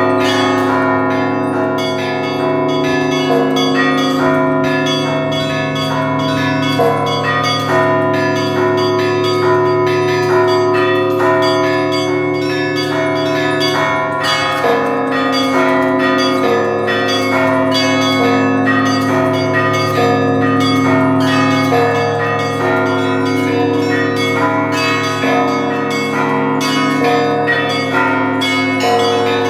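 Russian church bells rung by one bell-ringer in a continuous peal: rapid, dense strikes of the small high bells over the sustained ringing of the deeper bells.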